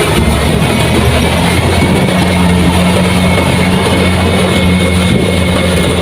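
Kubota rice combine harvester's diesel engine running steadily, with a faint high whine over the engine's drone.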